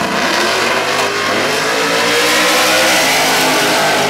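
Two 10.5-tire class drag cars, a Chevrolet Camaro and a Ford Mustang, launching and running at full throttle. Their engine note climbs steadily from about a second in and levels off near the end.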